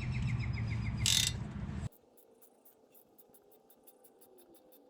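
Wrench working a rear brake caliper bolt loose: a quick run of small metallic clicks, then a short scrape. About two seconds in, the sound drops away to faint ticking.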